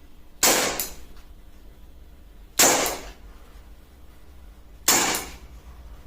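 Umarex Beretta M92 CO2 BB pistol firing three single shots about two seconds apart, each a sharp crack with a short tail.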